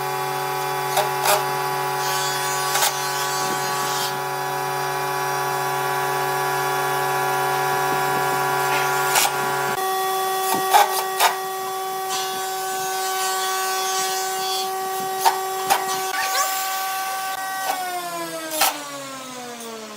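A woodworking power tool's motor running at a steady pitch with occasional knocks and clicks, its pitch shifting about halfway through. About two seconds before the end it switches off and winds down, the pitch falling steadily.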